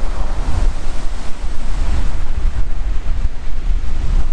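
Strong wind buffeting the microphone in a heavy low rumble, over the wash of surf breaking on a shingle beach.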